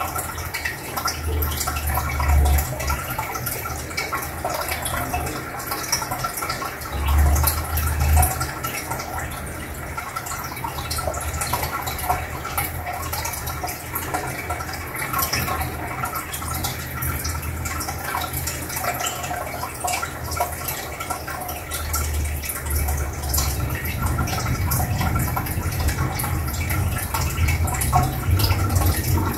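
Aquarium sponge filters bubbling: a steady stream of air bubbles rising and breaking at the water surface, with continuous gurgling and dripping. A low rumble comes twice in the first several seconds.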